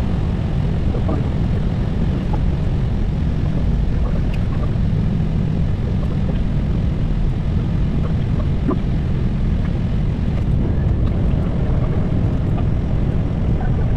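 Steady low rumble of cockpit noise inside an Airbus A320 on approach: airflow and engine noise heard from the flight deck, even and unchanging throughout.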